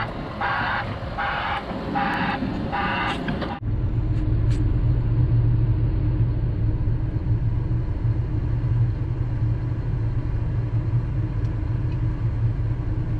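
Background music with a steady beat, about two pulses a second, cut off abruptly about three and a half seconds in. A heavy machine's engine then runs steadily with a low hum.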